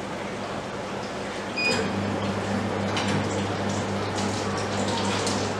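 A soft-serve ice cream machine gives a short beep, and its motor starts a steady low hum about a second and a half in while mix is drawn out through the dispensing spout, with a few light knocks.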